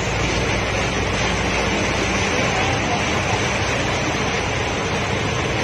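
Steady rushing and sloshing of floodwater pushed aside by a vehicle driving through a flooded street, with a low engine rumble underneath.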